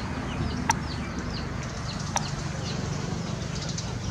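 Birds chirping over and over, short falling chirps a few times a second, with two sharp clicks, one a little under a second in and one about two seconds in, over a low background rumble.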